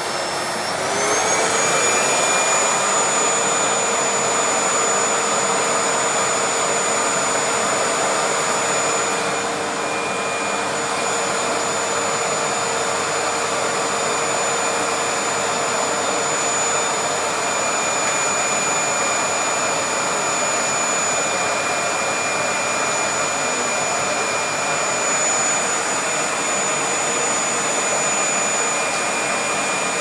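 Vacuum cleaner running steadily. About a second in, its motor whine rises in pitch and the sound gets louder, then holds.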